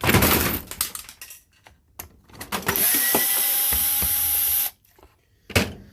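Cordless drill-driver running steadily for about two seconds, backing a self-tapping screw out of a plastic battery case, and stopping sharply. Before it there is a second or so of knocking and handling of the case, and a single knock near the end.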